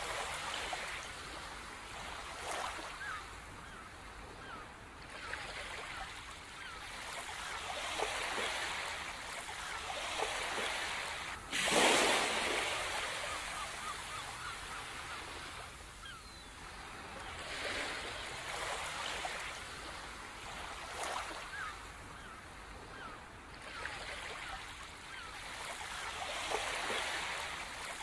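Sea surf: waves washing in and drawing back in slow swells every few seconds, with one louder breaking wave about twelve seconds in.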